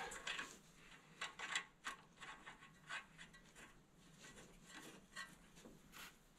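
Faint, scattered clicks and scrapes of a nut being threaded by hand onto the stud of a new outer tie rod end at the steering knuckle.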